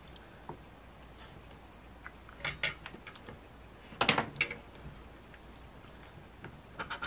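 A metal spoon and a felt-tip marker handled on a wooden table, with a few light clinks about two and a half and four seconds in. Near the end the spoon starts scratching the coating off a scratch-off lottery ticket in quick, rapid strokes.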